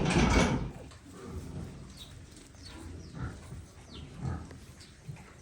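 Pigs in a farrowing pen: a loud rough squeal or grunt right at the start, then scattered soft grunts and short high falling squeaks from newborn piglets.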